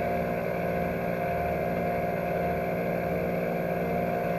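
Car engine running steadily, heard from inside the cabin as an unchanging hum with several fixed tones.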